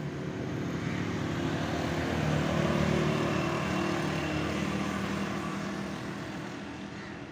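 Car engine and road noise heard from inside the cabin: a steady drone that swells for about three seconds and then eases off.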